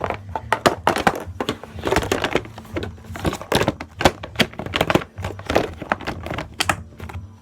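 Plastic Hot Wheels track pieces being handled and fitted together: a busy, irregular run of clicks, taps and rattles of hard plastic.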